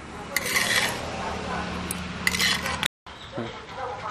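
Spatula scraping fried veldt grape, shallots and chillies out of a pan into a steel mixer jar, in two short bursts of metal-on-pan scraping. After a brief break there are a few light clicks as the jar is handled.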